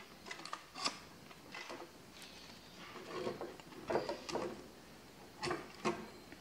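Scattered soft clicks, taps and rustles of a woven bamboo lidded container being handled, its lid and basket knocking lightly against each other and against the black wire stand.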